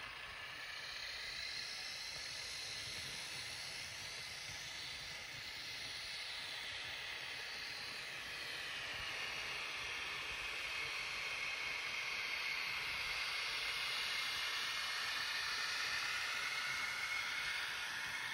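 Z scale model locomotives running on the track, a high hiss and whine whose pitch rises and falls as the trains speed up and slow down. It grows a little louder in the second half.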